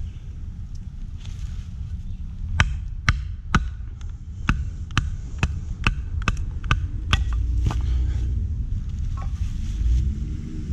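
A knife being batoned through small pieces of wood: a wooden baton strikes the knife's spine about a dozen times, roughly two a second, from about two and a half seconds in until near eight seconds, over a low steady rumble.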